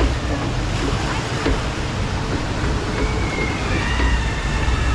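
Rushing water in a log flume channel around the floating boat: a steady, even wash of water noise.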